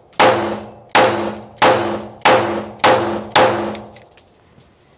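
Pistol fired six times in quick succession, about one shot every 0.6 s, each report followed by a ringing tail; the shots stop about three and a half seconds in as the ammunition runs out.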